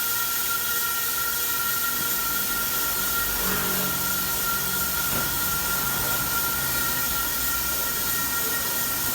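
Steady machine hiss with a constant high whine running underneath, with no change in level.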